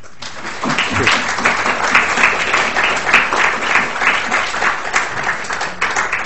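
An audience applauding: a dense patter of many hands clapping that swells within the first second and thins a little near the end.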